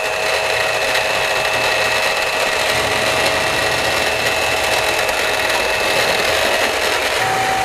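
Electric hand mixer running steadily, its beaters whipping a liquid gelatin mixture in a bowl with a steady motor whine. Near the end the whine steps up slightly in pitch as the speed changes.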